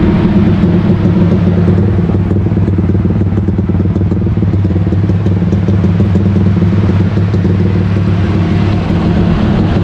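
Big-bore Yamaha Y15ZR single-cylinder four-stroke engine, built with a 65 mm block and a 4 mm stroker crank, running loud and steady on a dyno through a Rob1 exhaust.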